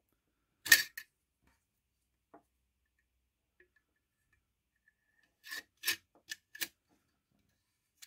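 Bayonet blade scraping against the mouth of its steel scabbard as it is slid in and out: one sharp scrape about a second in, then a quick run of four shorter scrapes and clicks near the end.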